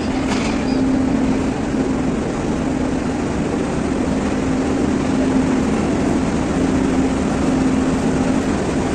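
Train engine running steadily at a station platform: a continuous drone with a low, steady hum.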